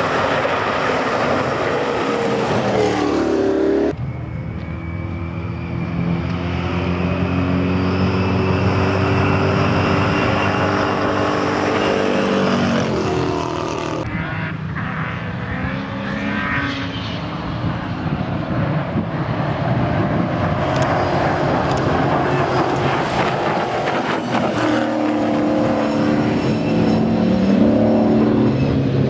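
Rally car engines working hard on a gravel special stage, revving up and dropping back as the cars change gear through the corners. The sound breaks off abruptly about four and fourteen seconds in.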